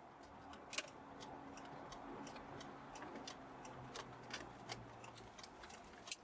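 Car turn-signal indicator ticking steadily, about three clicks a second, with a faint low hum underneath that fades out about five seconds in.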